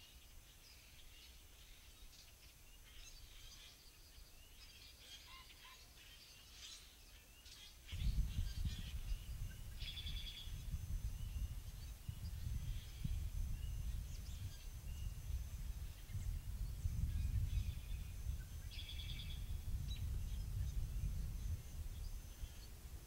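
Birds singing and calling, a mix of chirps, whistles and short trills. About eight seconds in, wind starts buffeting the microphone with a loud low rumble that stays to the end, and bird trills are still heard over it.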